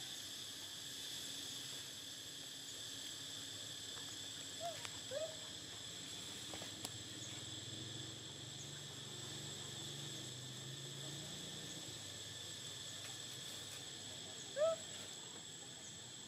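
Steady insect chorus, a high-pitched drone. A few short rising animal squeaks cut through it: two about five seconds in, and a louder one near the end.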